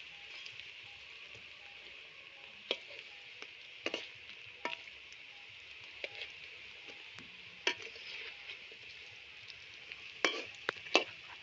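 Fish-roe fritters frying in hot oil in a kadai, with a steady sizzle and scattered sharp clicks, several close together near the end.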